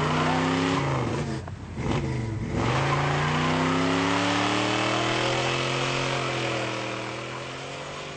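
A Ford Gran Torino's V8 revving hard as the car pulls away with its rear tyre spinning. The engine pitch dips twice early on, then climbs in one long rise, and the sound fades as the car drives off.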